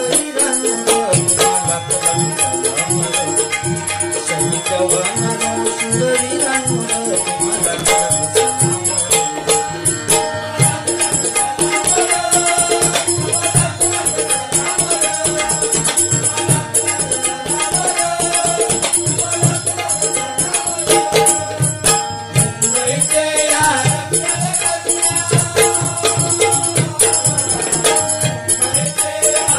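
Live Marathi bhajan gajar music: a harmonium melody over steady hand-drum strokes, with constant high jingling percussion throughout.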